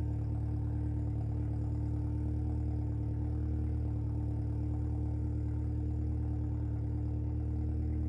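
Opel Corsa OPC's turbocharged 1.6-litre four-cylinder engine idling steadily through a straight-piped exhaust with the rear muffler deleted, a deep, even drone.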